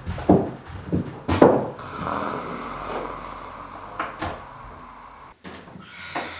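A man snoring, a few loud snorts in the first second and a half, then a door clicking shut about four seconds in.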